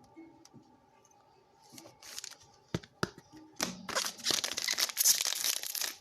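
A foil trading-card pack from the 2021 Panini Prizm Draft Picks box is torn open and crinkled. A few light clicks come first, then from about three and a half seconds in a loud, continuous crinkling tear.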